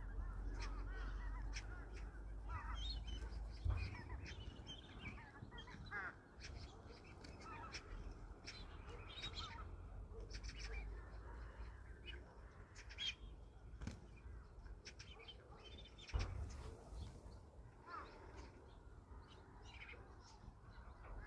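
Wild birds calling, a mix of many short chirps and scattered harsher calls, over a steady low rumble.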